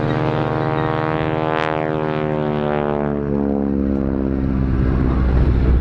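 North American Harvard's Pratt & Whitney R-1340 Wasp radial engine and propeller running loud at high power as the aircraft passes. The engine note slowly drops in pitch, with a phasing sweep about one and a half seconds in as it passes closest, and a low rumble builds toward the end.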